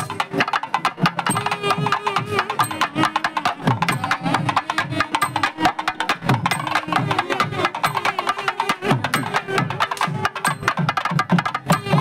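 Thavil barrel drums played in fast, dense strokes, with nadaswaram double-reed pipes playing a sliding melody over them: South Indian temple processional music (nadaswaram melam).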